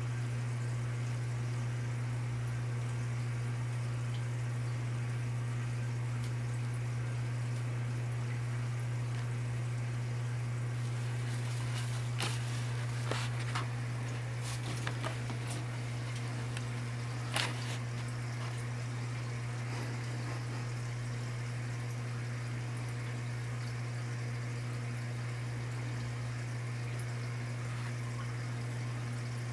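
Steady low hum with a faint hiss behind it. About halfway through come a few light clicks and rustles from a sugar glider moving through shredded-paper bedding.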